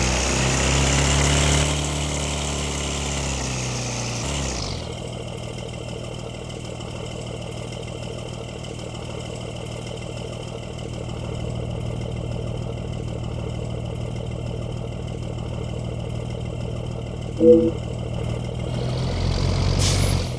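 Bus engine running close by, loud for about four and a half seconds, then dropping to a steady lower engine hum. There is a short horn toot about 17 seconds in, and the engine sound rises again near the end.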